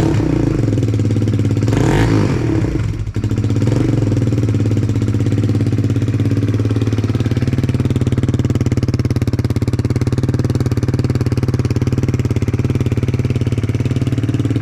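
Kawasaki Z125's small air-cooled single-cylinder four-stroke engine running through a newly fitted aftermarket full exhaust on its first start. It is blipped briefly a couple of times in the first few seconds, then settles into a steady idle.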